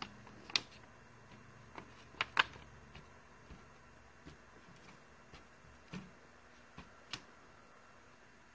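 Faint, irregular clicks and taps of close handling, about a dozen spread over several seconds, the loudest pair a little over two seconds in. They thin out and stop near the end, over a low steady hiss.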